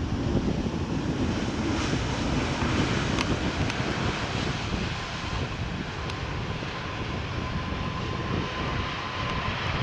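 Jet engine noise from a Boeing 777-300ER's GE90 engines as the airliner rolls out on the runway just after touchdown, with its spoilers raised. A steady low rumble, with a faint steady whine joining about halfway through.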